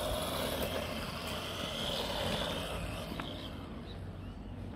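DEERRC brushless RC car's electric motor whining as the car drives away over the asphalt. The whine wavers in pitch and fades out after about three and a half seconds.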